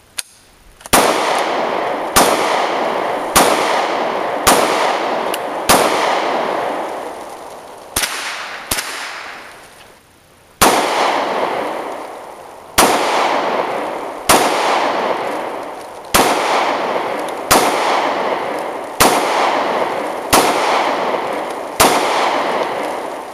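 Gunshots fired one at a time, about sixteen shots spaced roughly one to two seconds apart, each followed by a long echo that fades away.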